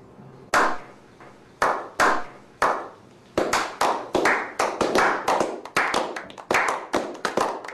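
Slow clap: a few single hand claps spaced roughly a second apart, then about halfway through several people join in and the claps come quicker and overlapping.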